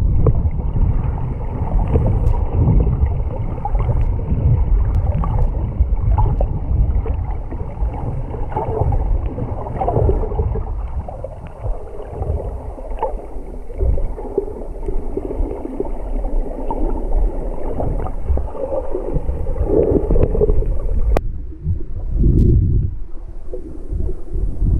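Water sloshing and gurgling around a camera held underwater while snorkeling: a muffled, uneven low rumble, with a sharp click near the end.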